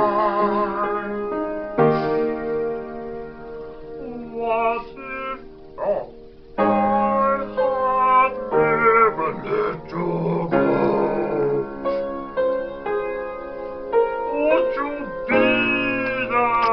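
A voice singing with vibrato over piano, the piano holding sustained chords beneath the held sung notes.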